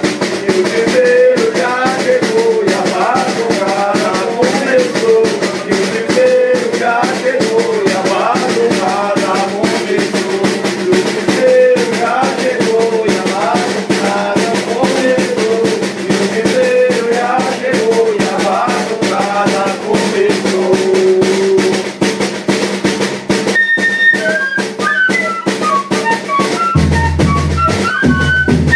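Banda de pífano music: a melody played over snare drum and other percussion. About 24 seconds in the music changes to a higher melody line, and deep bass notes come in near the end.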